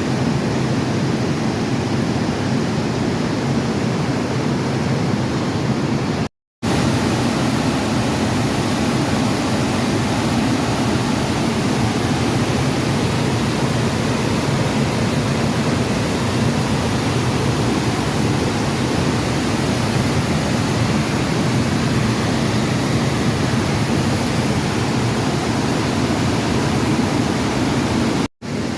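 Steady roar of rushing water from a waterfall, with two brief cut-outs to silence, about six seconds in and near the end.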